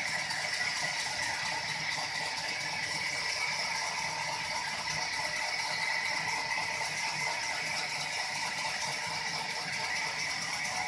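Sawmill machinery running steadily with a fast, even mechanical rattle and a steady high hum.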